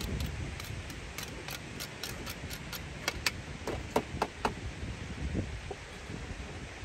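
Kitchen utensils clicking and clinking as they are handled: a quick run of light clicks, with a few ringing clinks about four seconds in. Low wind rumble on the microphone underneath.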